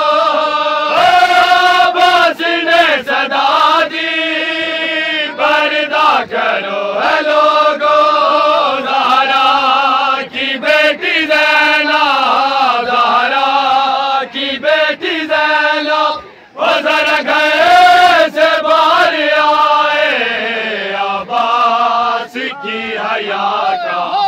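Group of men chanting a Shia noha together, loud and unbroken except for a short break about two-thirds of the way in. Sharp slaps of hands on chests (matam) sound here and there through the chant.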